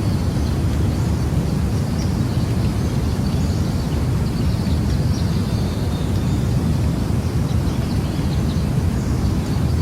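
Jungle ambience: a steady low rushing roar, with faint bird chirps and calls above it.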